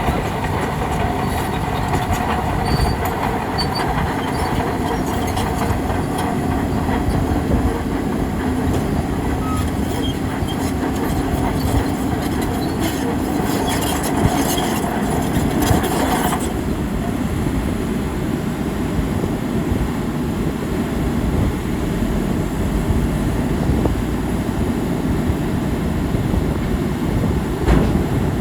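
Bulldozer running hard: a steady mechanical rumble throughout, with a pitched whine on top that cuts off suddenly a little past halfway.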